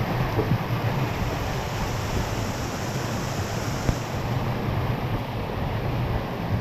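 Torrential downpour with wind buffeting the microphone, a steady dense rush of noise; one sharp knock about four seconds in.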